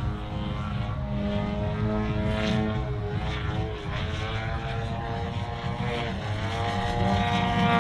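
Engine and propeller of a 102-inch Apex Aerotech Slick 360 RC aerobatic plane in flight, running steadily, its pitch dipping briefly about six seconds in and then climbing again as the throttle changes.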